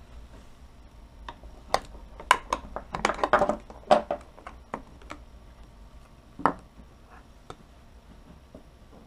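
Hands handling a Western Digital WD800 hard drive on a tabletop: a quick run of clicks and knocks of its metal casing from about two to four seconds in, then one more knock a couple of seconds later, with faint ticks between.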